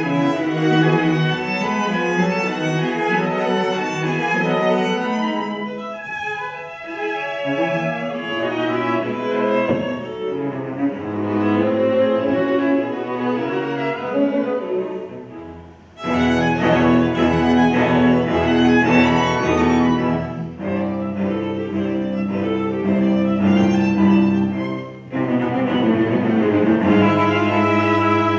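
String quartet of two violins, viola and cello playing a classical piece. Just past the middle the music thins and grows soft, then all four come back in suddenly and loud; there is another short drop about three seconds before the end.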